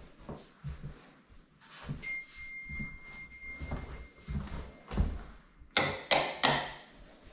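Footsteps on a hard floor in an empty house, a soft thump about every half second. A faint steady high tone sounds for a couple of seconds midway, and three quick, sharp clacks come close together near the end.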